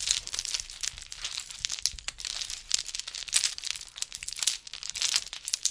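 Continuous, irregular crinkling and rustling crackle, like something crumpled or handled close to the microphone.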